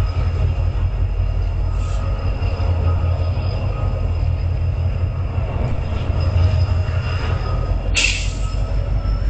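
Canadian National freight train passing: a steady low rumble with thin, steady wheel-squeal tones above it. A short, sharp burst of higher sound comes about eight seconds in.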